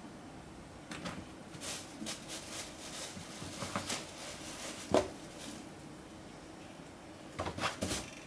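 Burmese kittens clambering over a fabric school backpack and the plastic bags and toys around it: scattered scratches, rustles and light knocks, with one sharper knock about five seconds in and a quick cluster near the end.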